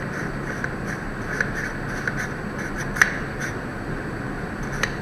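Light scraping and small plastic clicks from a camera lens cap being handled and worked off the lens, with one sharper click about three seconds in, over a steady background hum.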